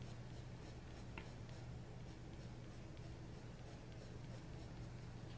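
Colored pencil scratching faintly on paper in quick, even back-and-forth strokes, about five a second.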